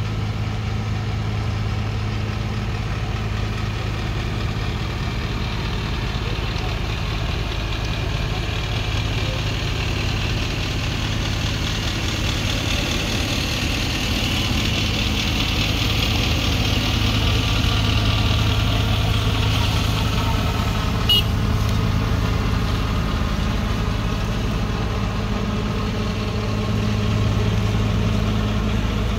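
Tanker truck's diesel engine idling steadily, with a hiss that swells and fades midway and a single sharp click about two-thirds of the way through.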